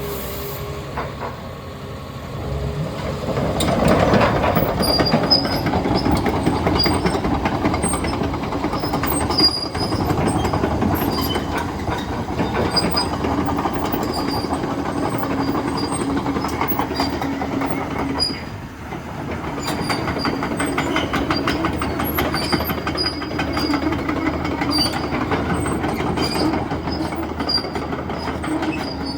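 Caterpillar 323E tracked excavator travelling on its steel tracks: a rapid clatter of track links with repeated short squeaks, over the steady hum of its diesel engine and hydraulics. The sound dips briefly about two-thirds of the way through, then picks up again.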